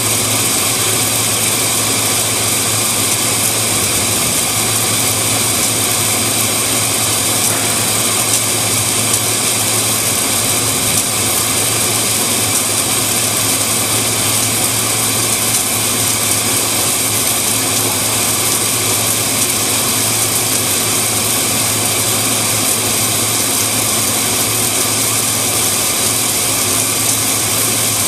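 Submerged arc welding station running: a steady rushing hiss, most likely the flux recovery vacuum drawing up flux, over a low electrical hum from the welding equipment, with no change throughout.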